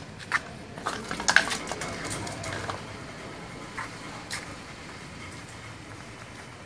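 A Miniature Pinscher playing with a small can on a tiled floor, heard as a run of sharp clicks and clatters from the can and its claws on the tiles. The loudest comes about a second and a half in, with two more knocks near the middle.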